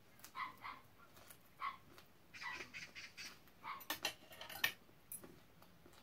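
Close-up chewing and mouth sounds of a person eating fresh fruit and vegetables: a string of short wet smacks, with a few sharp clicks about four seconds in.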